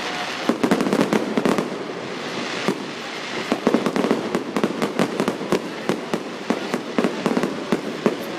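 Fireworks going off in dense crackling volleys of rapid pops. One burst comes about half a second in, a hissing lull follows, and steady crackling runs again from about three and a half seconds on.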